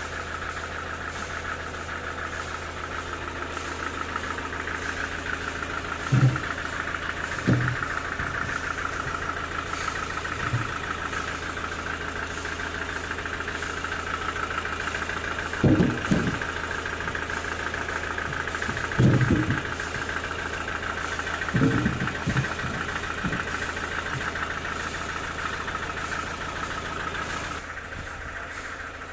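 A sawmill's engine running steadily with a low hum, broken by about half a dozen short, loud knocks: one about six seconds in, others scattered through the middle, and the last about three quarters of the way through.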